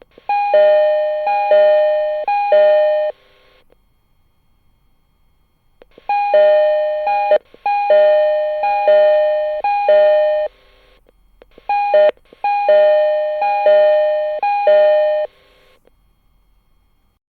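Door chime from a JR East 209 series train's above-door LED display unit, recorded straight from the part: a two-note high-then-low chime repeated three times in a row. It is played three times, and twice it cuts off abruptly partway through a note and starts over.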